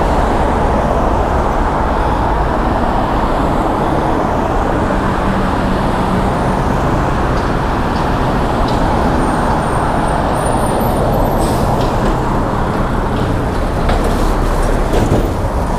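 Road traffic at a city intersection: cars and a truck driving past, their engines and tyres making a steady noise.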